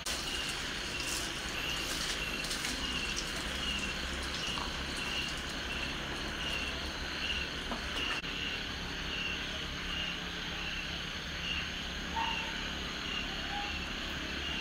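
Night insects chirping in a steady, even pulse, a little under two chirps a second, with a few short splashes of water in the first few seconds.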